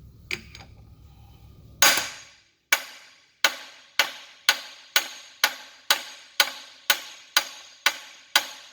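Hammer blows: one hard strike about two seconds in, then a steady run of about a dozen strikes at roughly two per second, each with a short ring.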